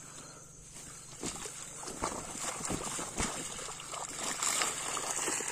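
Water splashing and sloshing as a mesh fish keepnet is lowered into a pond, beginning about a second in, with irregular knocks from the net being handled.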